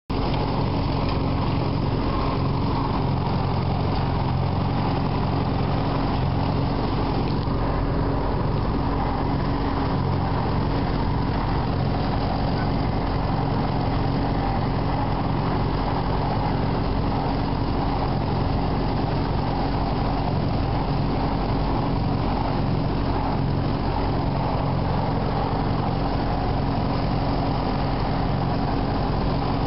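Tractor engine idling steadily, with a constant low rumble and an even hum.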